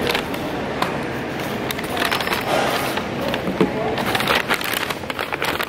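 Indistinct chatter of many people with scattered clatter and clicks: the busy hubbub of a crowded food court.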